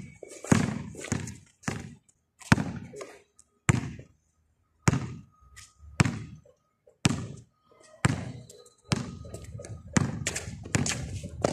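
Basketball dribbled on a concrete court: a run of sharp bounces, roughly one or two a second, with a couple of short pauses.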